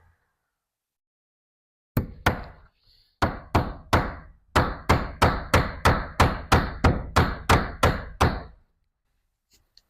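Hammer driving cable staples into wooden framing to fasten electrical wire: two strikes about two seconds in, then a steady run of strikes at about three a second for some five seconds.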